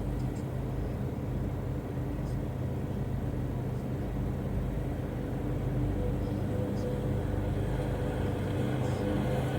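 Car engine idling with the heater and defroster fan blowing, a steady low hum and rush of air heard inside the parked car. A faint steady tone joins about six seconds in.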